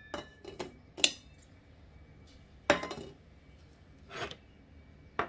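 A few separate clinks and knocks of a metal spoon against a stainless steel mixing bowl, the loudest a little under three seconds in.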